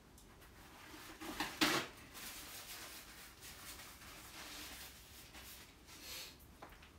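A man blowing his nose away from the microphone: two short, noisy blasts about a second and a half in, then faint, uneven noise.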